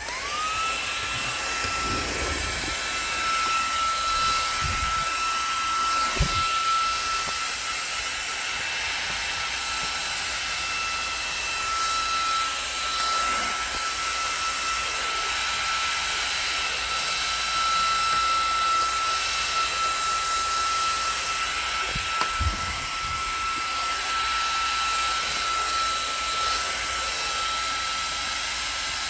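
Xiaomi mini cordless vacuum cleaner switched on, its motor spinning up to a steady high whine over rushing air as it vacuums the floor, with a few brief knocks of the nozzle along the way.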